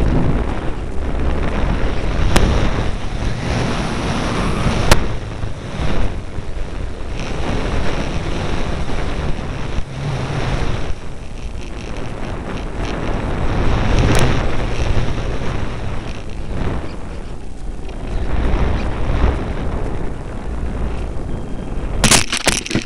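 Heavy wind rush buffeting the microphone of a small camera on a flying electric RC model plane, rising and falling with the plane's speed and turns, with a few sharp clicks. Near the end a quick cluster of knocks as the plane touches down, after which the rush drops away.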